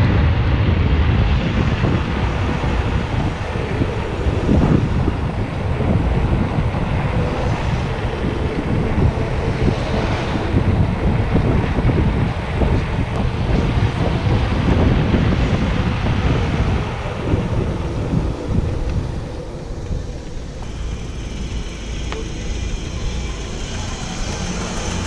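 Wind buffeting a handlebar camera's microphone as a loaded touring bicycle rides through city streets, mixed with road traffic noise; the rushing eases in the last few seconds as the bike slows.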